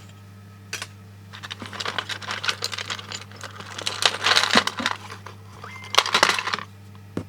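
Hands rummaging through a box of old electronic parts: irregular rustling with small clicks and clatters of hard items being shifted and picked up, busiest in the middle and ending with a sharp click.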